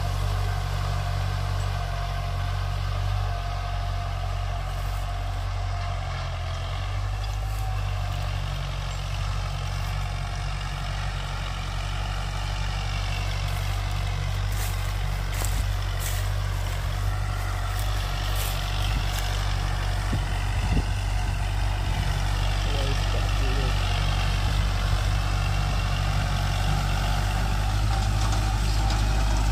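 Compact tractor's engine running steadily under load in first gear at about 1500 rpm while it pulls a cultivator through the soil.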